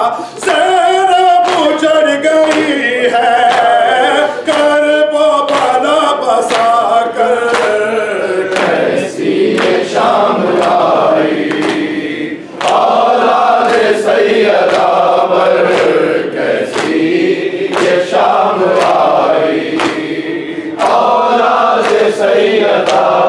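Men singing an Urdu noha (Shia lament) together, with sharp, evenly spaced chest-beating slaps (matam) keeping the beat under the voices.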